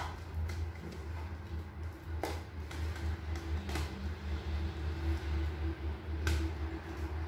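A fork mashing ripe bananas in a plastic container: a few sharp taps of the fork against the plastic, spread apart, over a steady low hum.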